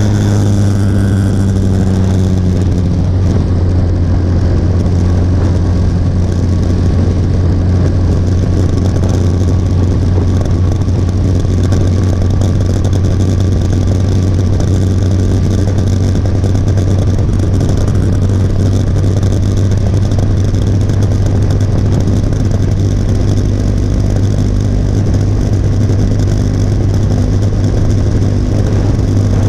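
Motorcycle engine running steadily at cruising speed, a constant low drone under an even rush of wind and road noise.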